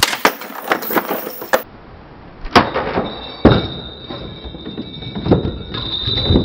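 Bricks clattering and knocking on a weight-loaded test fixture as a glued 1/4-inch dado joint in 3/4-inch plywood is pulled apart. There is a rapid run of sharp clicks at first, then two loud impacts a second apart about two and a half seconds in, then further knocks, with a steady high tone underneath.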